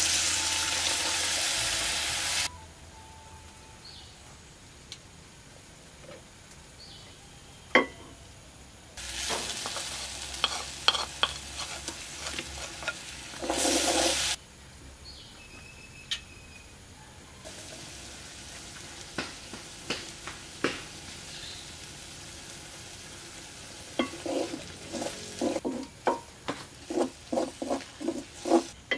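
Spiced chicken frying in a hot metal wok: a loud sizzling hiss as soya sauce is poured in, more hissing with clicks, and a short loud burst as mustard paste goes in. Near the end a spoon stirs and scrapes against the pan in quick strokes, two to three a second.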